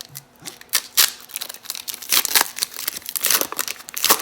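Plastic trading-card pack wrapper crinkling and tearing as it is opened and handled: a string of irregular, sharp crackling rustles.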